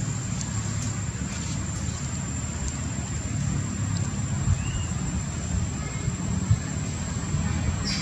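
Steady low outdoor rumble with a constant thin high whine over it and a few faint clicks; no monkey cries.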